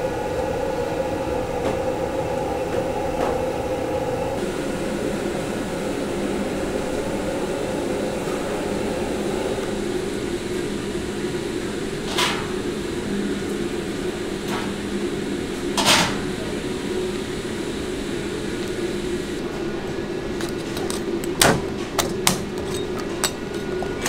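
Steady hum of a commercial kitchen's ventilation, with a few sharp clicks and knocks, most of them in the last few seconds.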